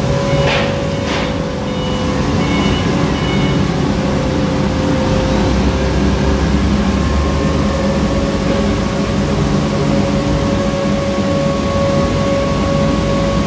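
Chinook hay dryer running: a steady drone with a held whine from the machine that forces heated air into the bales.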